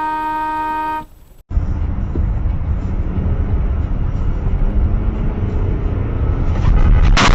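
A car horn sounds one long steady honk, a warning at a pedestrian blocking the car, and cuts off about a second in. Then a car's low, steady road and engine rumble as it drives, turning louder near the end.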